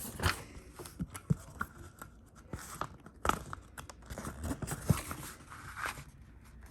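Paper rustling and crinkling in irregular handfuls, with small taps and clicks, as printed instruction sheets are handled.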